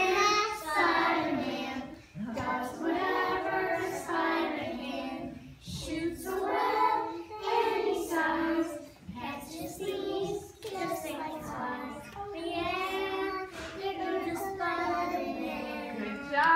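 Young children singing a song together, in phrases of held notes with short breaks between lines.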